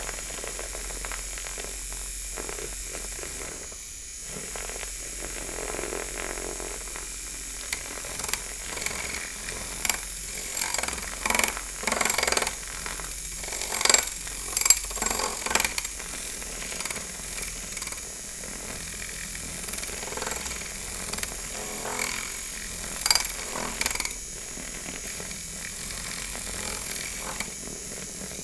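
Milk frother running steadily as it froths milk, a constant hissing whine with many short, irregular louder bursts through the middle stretch.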